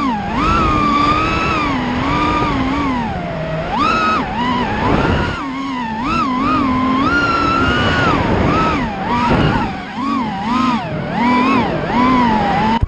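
FPV racing quadcopter's brushless motors whining, the pitch rising and falling constantly as the throttle changes through the track.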